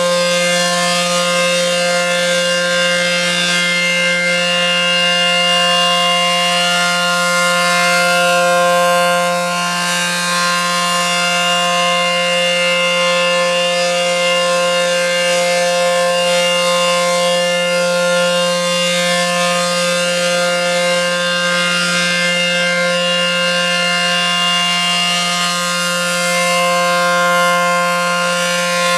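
ACA Penetrator P-10 single-phase, dual-tone outdoor warning siren sounding the steady Alert signal: two tones held together at a constant pitch, swelling a little in loudness twice.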